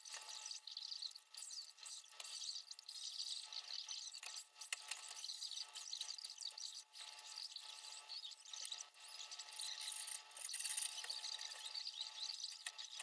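A small hand tool scraping and rubbing against the edges of laser-cut wooden model-aircraft kit parts, in quick, irregular strokes: freeing and trimming parts from the sheet.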